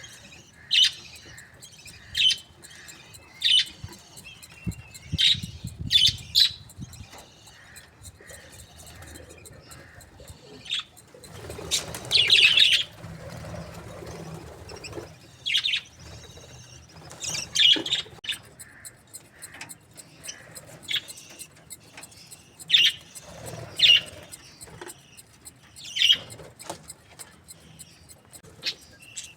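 Budgerigars chirping: short, sharp calls every second or two, with a longer, louder burst of chatter about twelve seconds in.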